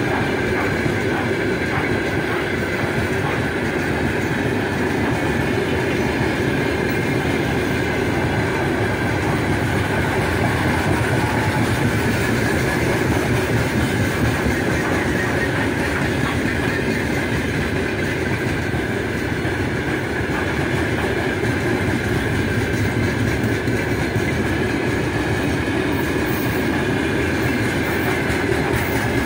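Heavy freight train of open-top gondola wagons rolling past, its steel wheels clattering and rumbling on the rails in a loud, steady noise.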